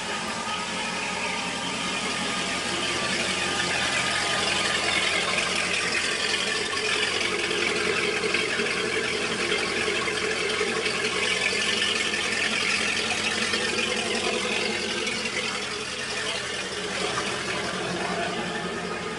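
Engine of a 2007 Sea Ray Sundeck 270 DB running steadily under a hissing rush of noise. It grows a little louder over the first few seconds and eases back near the end.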